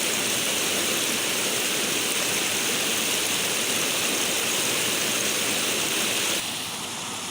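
Steady rush of running water that drops suddenly to a quieter level near the end.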